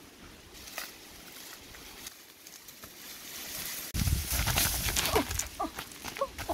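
Rustling of tall dry grass, then from about four seconds in much louder rustling and scuffling as a chicken is grabbed, with a few short squawks from the bird.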